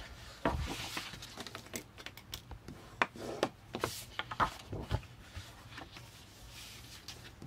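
Sheets of white cardstock being handled and moved about on a table: scattered light taps and paper rustles.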